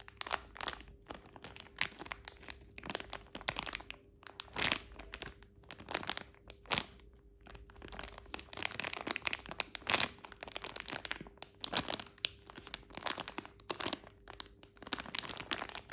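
Plastic packaging crinkling and crackling as it is handled, in irregular short rustles.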